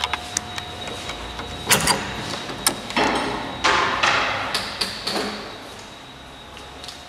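A wooden door being handled and opened: a few sharp knocks and clicks, then stretches of scraping and rustling that die away about five seconds in.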